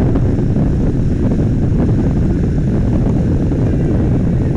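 Inflatable motorboat's engine running steadily under way, mixed with wind noise on the microphone.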